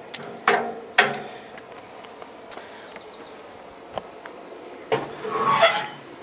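Charcoal and the steel grate clanking in an offset barrel smoker's firebox as the last embers are poked with a wooden-handled tool: two sharp ringing clanks in the first second, then a few lighter knocks. About five seconds in, a louder scraping creak as the steel firebox door is swung closed.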